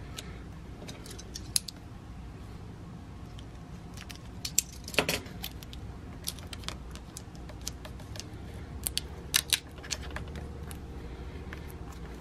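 Hands handling a hockey skate and pressing an adhesive vinyl decal and its clear transfer tape onto it: scattered light clicks and plastic crinkles, with a louder crackle about five seconds in and a short flurry near the end, over a faint low hum.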